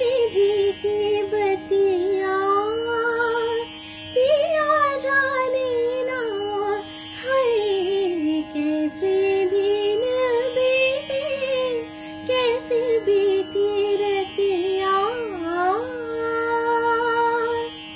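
A woman singing solo, an old song sung in an Indian classical manner, with wavering pitch glides and a long held note near the end, over a steady drone tone.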